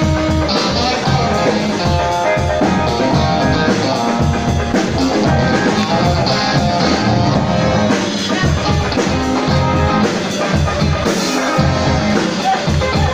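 Rock band playing live: electric guitar over a drum kit, loud and steady throughout.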